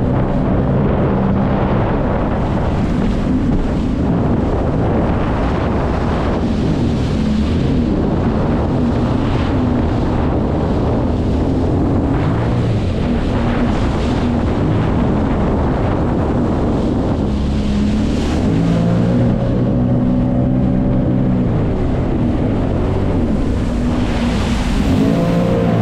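Jet ski engine running under way, its pitch rising and falling with the throttle, over the rush of water and wind buffeting the microphone.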